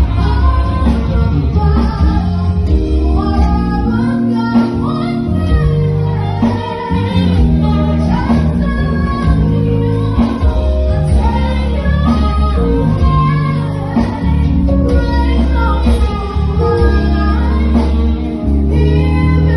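A woman singing lead with a live band of saxophone and drums, over steady low notes.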